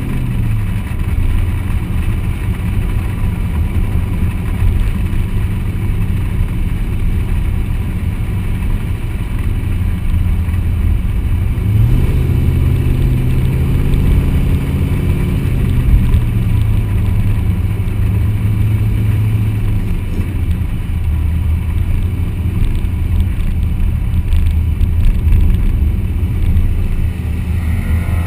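Car engine and exhaust running while the car drives along, with road and wind noise, heard from low on the car's side by the wheel. The engine note falls just after the start, rises about twelve seconds in as the car pulls harder, and drops back around twenty seconds.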